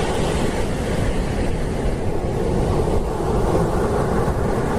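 Large ocean waves breaking on a sand beach: a steady rushing surf, with wind buffeting the microphone.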